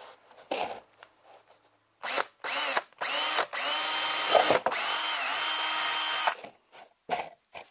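Power drill boring a hole through a carpet-lined fiberglass tonneau cover. It is run in short trigger pulses, each spinning up with a rising whine, and then held at steady speed for about a second and a half near the end.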